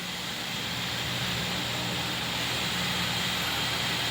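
Steady fan noise, a hiss with a faint low hum, typical of a running desktop PC's cooling fans.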